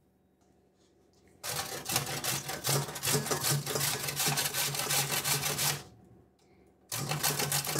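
White radish (mooli) being grated on a stainless steel box grater standing in a steel bowl: quick rasping strokes start about a second and a half in, stop briefly around six seconds, then start again near the end.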